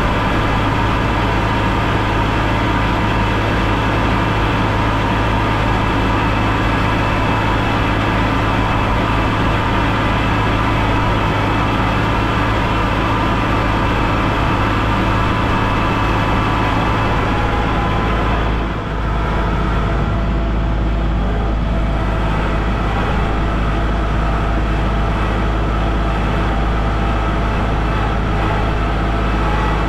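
Compact tractor engine running steadily under load while the tractor plows snow with a front blade, a deep hum with a brief dip in level about two-thirds of the way through.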